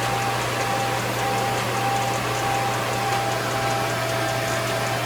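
Edge banding machine running steadily with a constant low hum and a faint high whine, as it feeds and trims vinyl edge banding onto cabinet parts.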